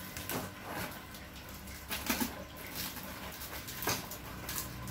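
A few light clicks and knocks as a white PVC tube and its red plastic cap are handled and twisted.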